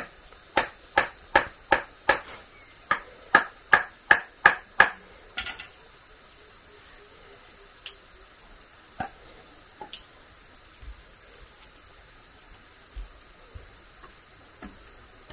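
About a dozen sharp knocks, two or three a second, over the first five seconds, then only a few faint taps. A steady high-pitched insect drone carries on underneath.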